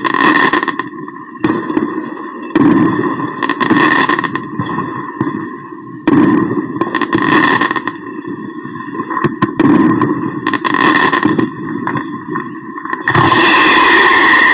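New Year fireworks and firecrackers bursting, loud explosions every one to three seconds with echo. A steady set of high tones runs beneath them, and a longer, louder burst comes near the end.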